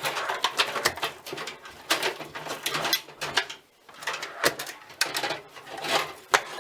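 Irregular clicking, knocking and clattering of power supply cables and connectors being handled and pushed into a metal PC case, with a brief pause a little past halfway.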